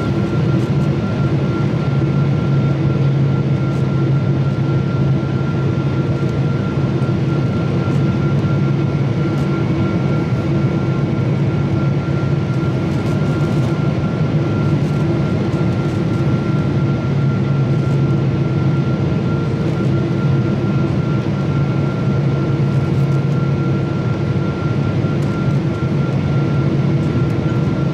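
Jet airliner cabin noise beside the wing engine in flight: a steady turbofan drone and rushing air, with a low hum and a thin steady whine above it.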